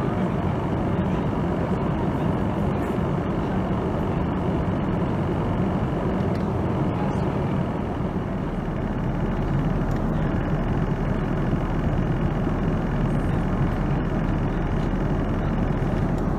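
Steady cabin noise of a Boeing 787-9 Dreamliner in flight, heard from a window seat beside its Rolls-Royce Trent 1000 engine: an even, unchanging rush of airflow and engine drone.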